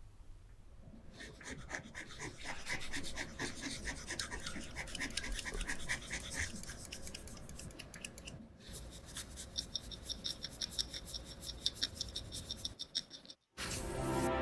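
Restoration tools working on a bare linen canvas: quick, repeated scratching and brushing strokes from a scalpel and brushes. After a brief gap near the end comes one louder sweep of a wide brush across the canvas.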